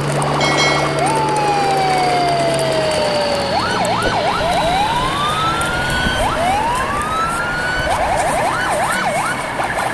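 A siren sounding: a slow falling tone, then quick rising-and-falling yelps about four seconds in and again near the end, with slow rising wails between them. A steady low hum runs under it for the first three seconds.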